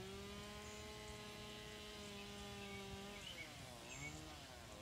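Faint, steady whine of a Stihl MS 170 two-stroke chainsaw running at high revs. About three seconds in, the pitch sags and wavers as the chain works into the wood, then climbs again near the end.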